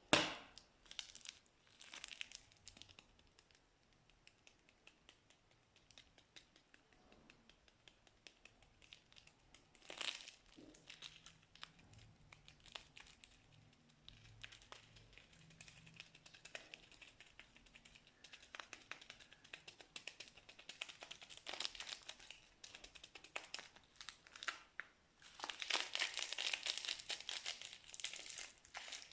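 Plastic piping bags crinkling and rustling as slime is worked in them, with many small sharp clicks and crackles. A sharp snap comes right at the start, and the crinkling grows dense and louder near the end.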